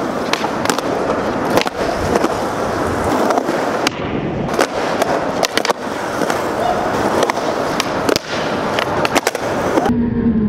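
Skateboard wheels rolling on smooth concrete, broken by sharp wooden clacks of the board popping and landing as tricks are done. About a second before the end the sound turns muffled, with a low hum.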